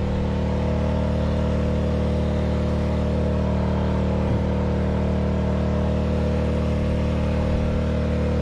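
Champion 2200-watt petrol inverter generator running steadily under a heavy load of about 1650 watts, an even engine drone with no change in speed.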